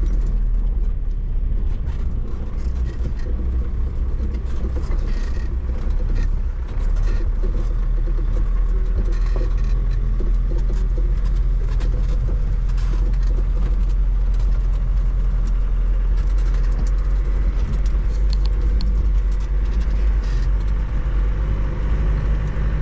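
Land Rover Defender's engine running under load, heard from inside the cabin, with a steady low rumble and frequent rattles and knocks from the body over rough ground.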